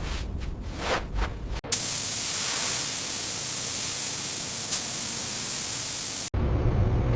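A few soft whooshes, then a loud steady hiss that cuts in abruptly about a second and a half in and stops just as abruptly near the end, giving way to a low rumble.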